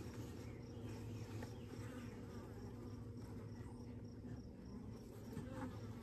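Honeybees of an open hive colony buzzing: a faint, steady hum.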